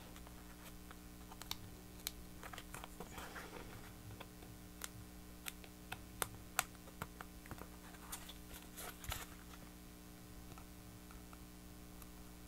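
Faint scattered clicks, taps and light rustles of cardstock and double-sided tape being handled and pressed by hand, over a steady low hum.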